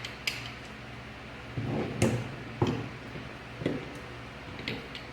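Plaster dental models and a dental articulator being handled and set together: a handful of short knocks and clacks at irregular intervals, the sharpest about two seconds in, over a steady low hum.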